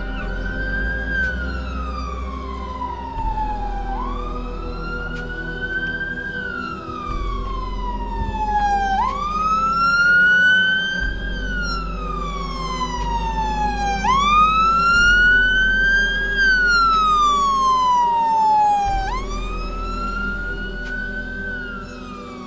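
Fire engine siren on a slow wail, rising and falling about every five seconds as the appliance approaches, loudest around the middle, with a low rumble underneath.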